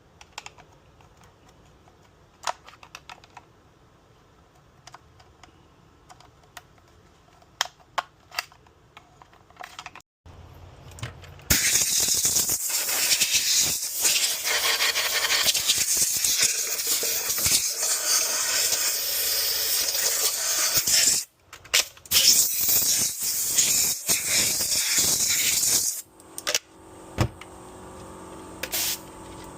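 Light clicks and knocks of plastic vacuum parts being handled. Then, from about a third of the way in, a compressed-air blow gun hisses loudly in long blasts as it blows dust out of the Dyson cyclone parts. The air cuts out briefly twice.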